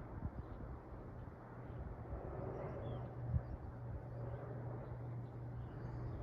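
52-inch Harbor Breeze Springfield ceiling fan running steadily, a low motor hum under the whoosh of moving air, with a few faint high chirps.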